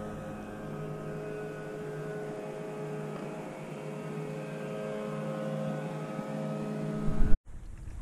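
An engine drones steadily at an even pitch, then cuts off abruptly about seven seconds in. It is followed by rough, uneven rumbling.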